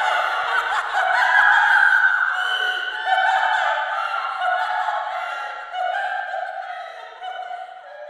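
Creepy ghost-girl laughter: several high girls' voices laughing and snickering together in drawn-out, overlapping strands, slowly fading away toward the end.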